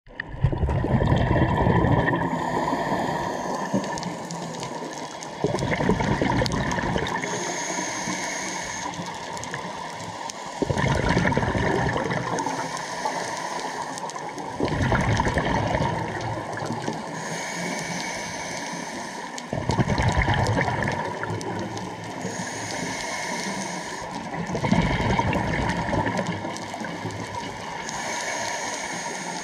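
A scuba diver breathing through a regulator underwater: a surge of exhaled bubbles gurgling about every five seconds, with a thin hiss on each inhale in between.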